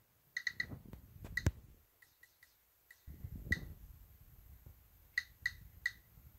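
Geiger counter beeping at irregular intervals, about a dozen short high beeps in all, as it counts radiation from a radioactive thorium-mineral specimen. A low rumble of handling noise lies under the beeps.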